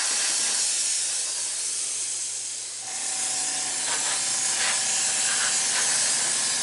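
Airbrush spraying paint: a steady hiss of compressed air and atomised paint from the nozzle, with a faint steady tone joining about three seconds in.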